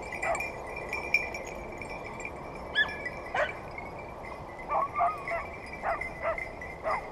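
Hunting dogs yelping, a string of short cries that bend up and down in pitch, coming every second or so.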